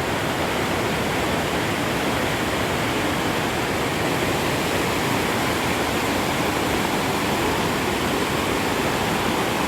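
Mountain creek running high with snowmelt, rushing in a steady, unbroken roar of white water close by.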